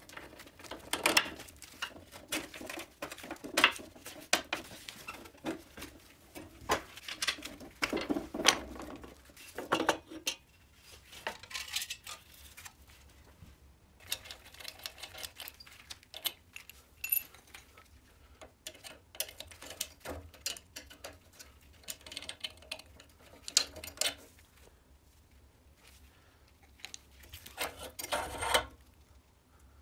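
Metal parts of an old Riga-12 moped frame clinking and knocking as they are unbolted and handled, in irregular bursts of clatter with quieter pauses between.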